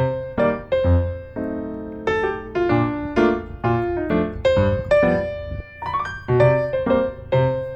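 Background piano music: a steady rhythm of struck notes over low bass notes.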